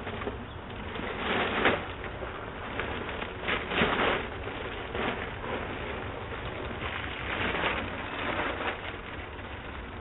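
Plastic garbage bag rustling and crinkling close to the microphone, in several irregular bursts, over a steady low background noise.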